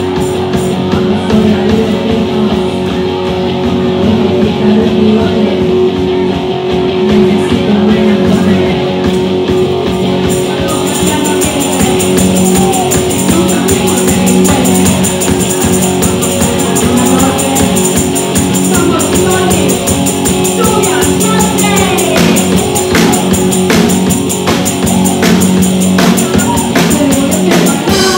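Live rock band playing: electric guitar, bass guitar and a drum kit, with a voice singing. Cymbals come in about ten seconds in, and the drum hits stand out more toward the end.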